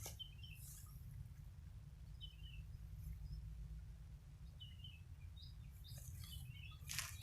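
Faint bird chirps, short and scattered a few times, over a steady low rumble, with one short sharp burst of noise near the end.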